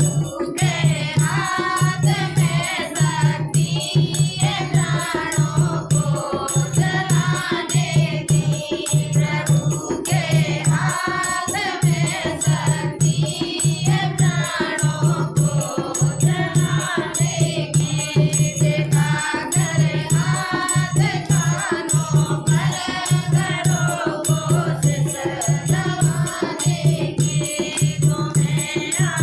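A group of women singing a Hindi devotional bhajan together, over a steady drum beat about once a second and rattling percussion.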